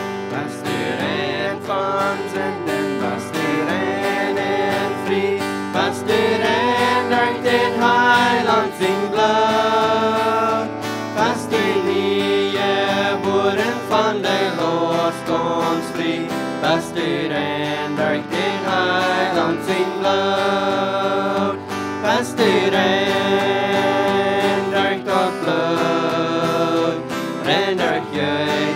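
Male and female voices singing a worship song to a strummed acoustic guitar.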